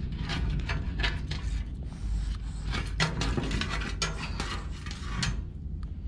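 Irregular clicking and scraping as a barnacle-crusted sea turtle shell and flippers are handled on a painted wooden board, over a steady low rumble. The clicks thin out near the end.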